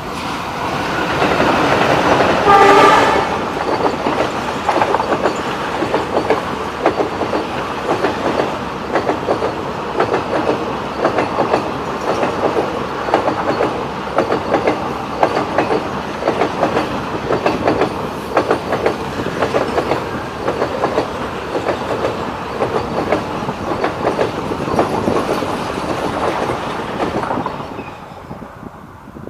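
Twin WDG3A diesel locomotives at the head of an Indian passenger train pass with a short horn blast about three seconds in. The coaches' wheels then clatter over the rail joints in a fast, even rhythm for over twenty seconds, fading away near the end.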